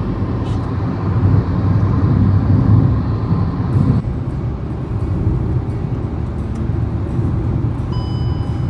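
Steady low road and engine rumble heard inside the cabin of a moving car, a Hyundai Verna, with a short faint beep near the end.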